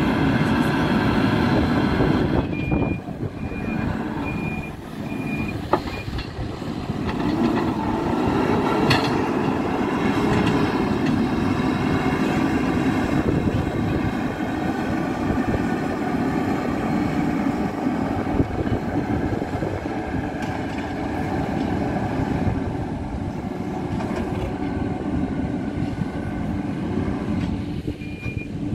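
Hidromek 102B backhoe loader's diesel engine working under load, its revs rising and falling as it pushes fill. Its reversing alarm beeps steadily for a few seconds about three seconds in and again at the end, and a short knock is heard a couple of times.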